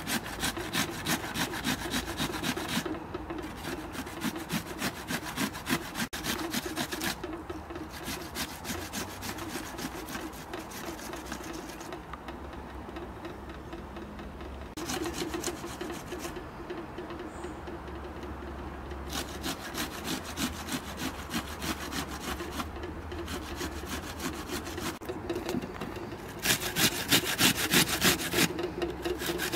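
Peeled onion rubbed up and down a stainless steel box grater: runs of quick rasping strokes broken by short pauses, with a longer pause about halfway through and the loudest strokes near the end.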